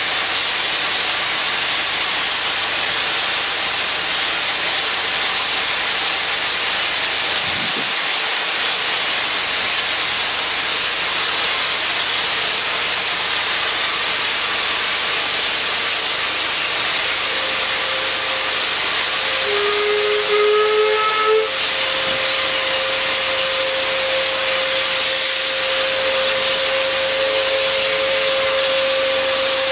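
Steam locomotive letting off steam: a loud, steady hiss. About two-thirds through, a whistle-like tone starts and holds steady, and a second, slightly lower tone sounds over it for about two seconds.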